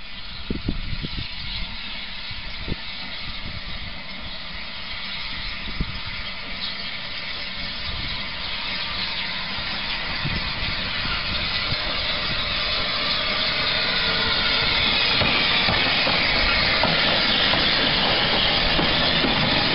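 Bagnall 0-4-0 saddle tank steam locomotive drawing a wooden coach towards and past the listener, steam hissing. The sound grows steadily louder as it nears and is loudest from about two-thirds of the way in.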